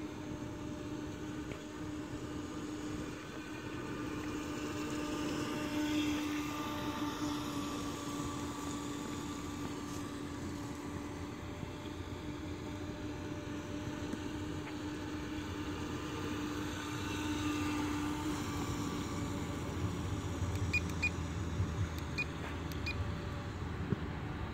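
RC speedboat's motor running out on the water with a steady whine, swelling louder twice, about six seconds in and again around seventeen seconds, as the boat comes nearer.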